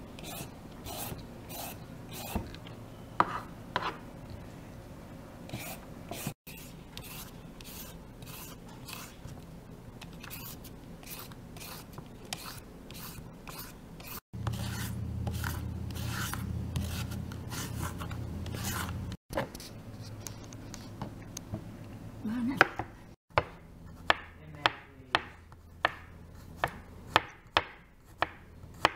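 Julienne peeler shredding green papaya and carrot over a wooden cutting board, in repeated scraping strokes. Near the end, a knife slicing garlic cloves on the board in quick, sharp taps, about two a second.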